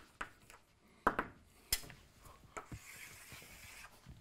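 Chalk on a blackboard: a few taps and scratches of writing, then a long scraping stroke of about a second near the end as a line is drawn.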